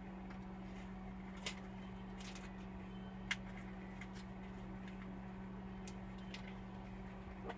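Scattered small clicks and taps from handling a Dell Vostro 3500 laptop's parts and tools during disassembly, the sharpest about three seconds in, over a steady low electrical hum.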